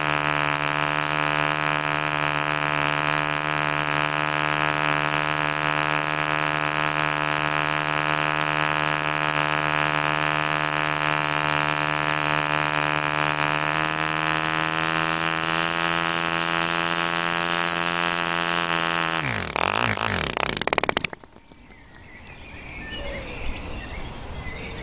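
A 1949 DC Wildcat 5cc two-stroke model diesel engine running steadily at high speed with its propeller, its compression set at about the minimum for consistent running. About fourteen seconds in the pitch rises slightly as it picks up speed, then a few seconds later the pitch drops away quickly as the engine slows and stops.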